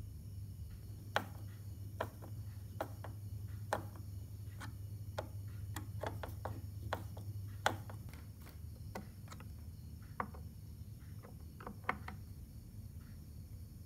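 Irregular clicks and taps of a hand screwdriver turning screws through a TV stand leg into the back of a flat-screen TV, with the tool and parts knocking now and then. A steady low hum runs underneath.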